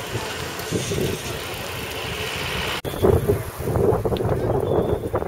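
Wind buffeting the camera microphone while riding a bicycle, with road rumble. The sound changes abruptly about three seconds in: the hiss drops away and gives way to rougher, lower buffeting.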